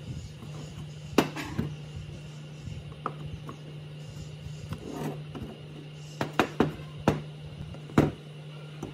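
Sharp knocks and clicks of parts and hand tools being handled, about nine in all with a quick cluster of three near the middle, over a steady low hum.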